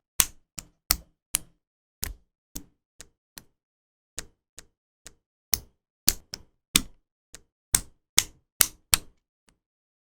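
Plastic LEGO Technic parts clicking and snapping together during assembly: about twenty sharp, separate clicks at an uneven pace, with silence between them.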